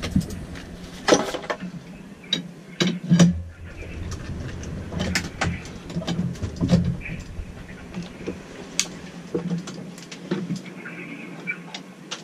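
Irregular knocks and clatter of gear being handled in a sailboat's cabin, over a steady low hum.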